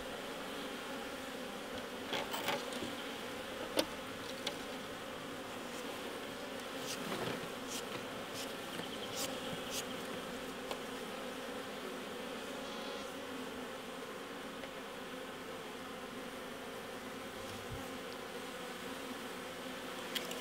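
Honeybees buzzing around an open horizontal hive, a steady massed drone, with a few light clicks and knocks scattered through it.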